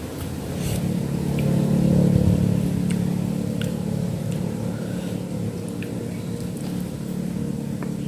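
A steady low rumble that swells about two seconds in and then settles, with a few faint small clicks over it.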